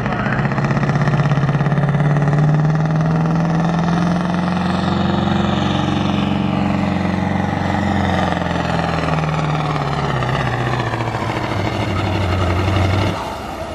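Mack semi truck's diesel engine running under full load as it drags the weight sled down the pulling track. The engine note climbs slightly at first, then sags steadily lower in pitch over the second half as the sled bogs it down, with a brief dip in loudness near the end.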